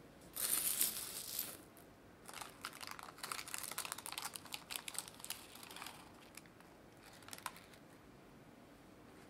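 A metal spoon scoops silver tart weights (baking beans) out of a baked tart shell: a clattering rattle about a second long near the start. Then parchment paper crinkles, with the weights clicking against each other for several seconds as the liner is lifted out with them. A faint crinkle follows.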